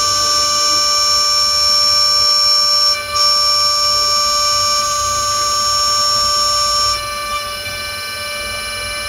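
Desktop 5-axis CNC mill's spindle whining at a steady high pitch while a 0.5 mm two-flute end mill cuts an aluminum mold block. The whine breaks off for a moment about three seconds in; near seven seconds its highest notes stop and it gets quieter.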